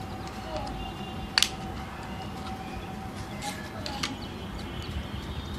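Plastic quartz clock movement being handled and its case opened: a sharp plastic click about a second and a half in and a softer one about four seconds in, over steady background noise.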